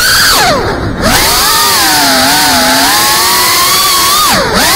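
FPV drone's brushless motors and propellers whining, the pitch rising and falling with the throttle. The pitch drops sharply about a second in and again near the end, then climbs back.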